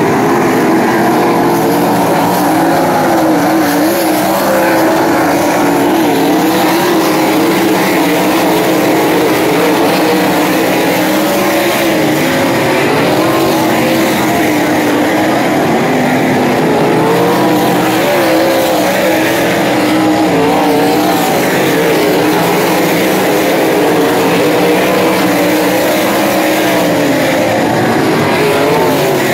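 Winged sprint car engines running on the track, several at once, loud and unbroken, their pitches wavering up and down.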